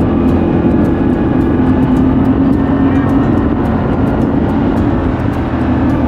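Side-by-side utility vehicle's engine running steadily as it drives along a farm lane.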